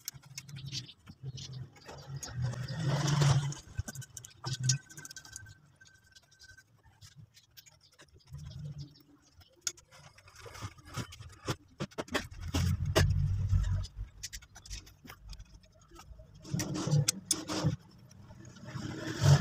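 Light metallic clicks and scrapes of small valve-train parts being handled and set on the cylinder head. A low rumble swells in the background about two-thirds of the way through.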